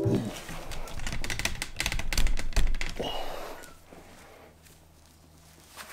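Handling noise: a quick run of clicks, knocks and clatter as the helmet and camera are moved about on a workbench, dying away about three seconds in to a faint steady hum.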